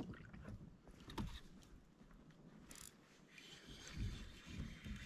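Faint knocks and scrapes of gear moving on a fishing kayak, a few scattered bumps with light water noise.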